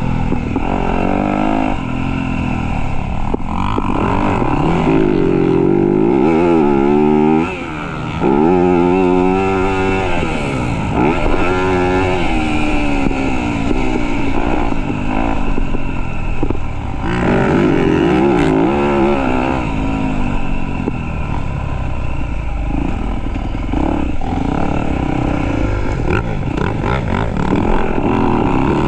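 Motocross dirt bike engine revving hard, its pitch climbing and falling again and again as the rider works the throttle and gears. The sound dips briefly about seven seconds in, when the throttle is rolled off.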